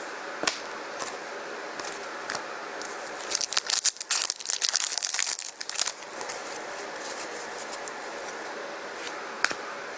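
Plastic wrapper of a trading card pack crinkling and tearing for a couple of seconds in the middle, with a few light taps of cards being handled before and after.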